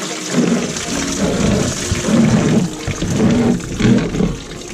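Red engine coolant gushing out of a Toyota Hilux radiator drain and splashing into a plastic bucket, in uneven surges, over background music.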